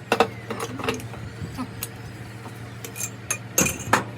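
Irregular sharp metallic knocks and clinks, a few in the first second and a louder cluster near the end, over a steady low hum.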